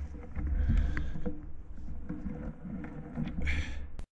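A person walking over dry grass and forest ground carrying an air rifle, heard through a body-worn camera: irregular footsteps and clothing rustle with handling bumps and a heavy low rumble on the microphone. A brief rustling swish comes near the end, then a sharp click as the sound cuts off.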